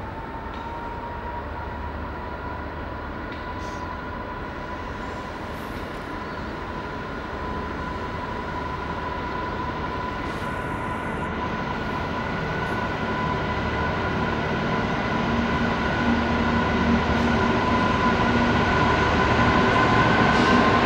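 Class 66 diesel locomotive's EMD two-stroke V12 working hard ("thrash") as it approaches at the head of a loaded coal train, growing steadily louder. Steady high-pitched tones ride over the low engine note and rise slightly in pitch toward the end.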